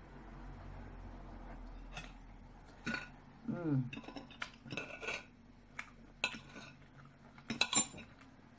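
Steel knife and fork clinking and scraping on a ceramic plate while cutting food, in scattered sharp clicks, with a burst of the loudest clinks near the end.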